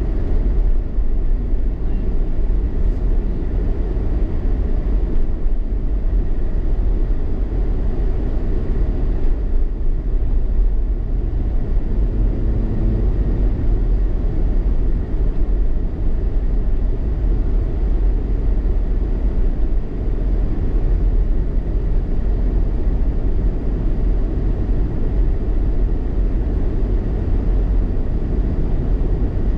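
Car driving on a snowy road: a steady low rumble of engine and tyre noise.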